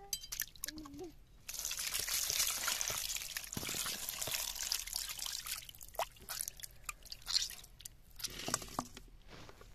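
Water poured in a steady stream over chicken parts in a bamboo basket as hands rub and rinse them, then splashing and dripping as the pieces are swished and lifted out of a metal kadai of water. The pouring is loudest from about a second and a half in to about five seconds in; after that come scattered splashes and drips.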